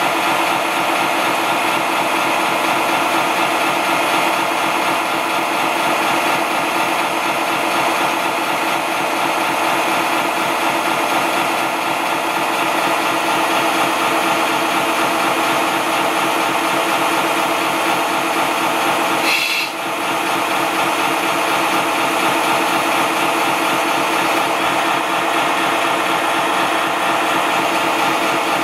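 Small electric water pump of an RC fire truck running steadily with a buzzing, rasping drone while its monitor sprays water and foam. The drone dips briefly with a short sharp noise about two-thirds of the way in, then carries on.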